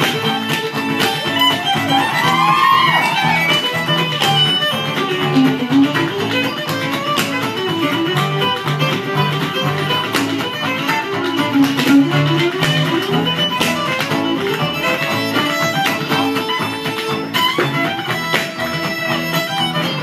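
Live acoustic folk tune played on fiddle, cello and acoustic guitar, with a steady pulse in the low strings and the fiddle carrying the melody. Sharp taps run through it, which fit the dancer's percussive footwork on the stage.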